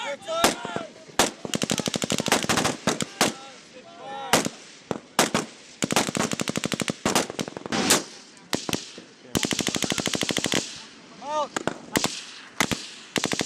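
Small-arms fire from M4 carbines and M249 light machine guns: scattered single shots mixed with rapid bursts of automatic fire, the longest burst starting about nine and a half seconds in and lasting just over a second.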